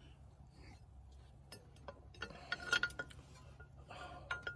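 Small steel bracket clinking and tapping against the tractor's metal as it is worked into place under the power steering valve: scattered sharp clinks with a brief ring, bunched about two and a half seconds in and again near the end.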